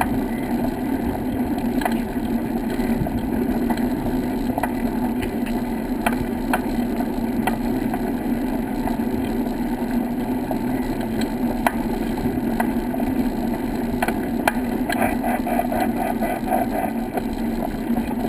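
Steady rumble of a camera riding along a brick-paved path, with scattered sharp clicks and rattles.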